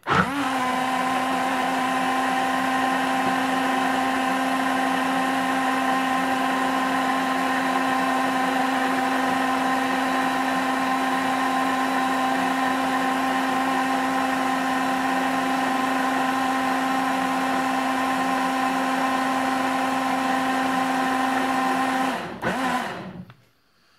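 BlendyGo 3 portable bottle blender switched on and running steadily, blending milk and fruit, with an even motor whine. It stops and winds down about 22 seconds in.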